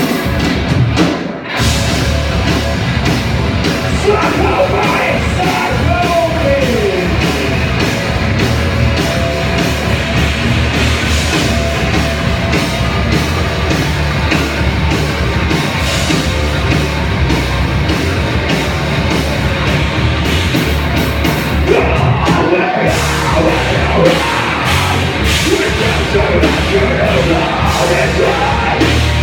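Rock band playing loudly live, with a singer's voice over the band. The sound drops out for a moment about a second and a half in, then carries on.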